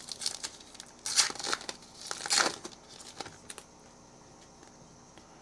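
Crinkling and tearing of a foil trading-card pack wrapper as it is ripped open, in two louder pulls about a second and two and a half seconds in, then quiet handling.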